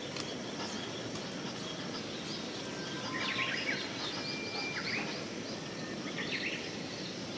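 Outdoor background noise with birds chirping, in a few short calls about three seconds in and again around five and six seconds.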